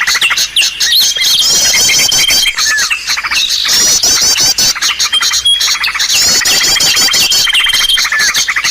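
Bird-lure (pikat) recording of many small birds' calls layered together: quick series of high hooked chirps, a held thin whistle and rapid ticking, the same sequence coming back every few seconds as the recording loops.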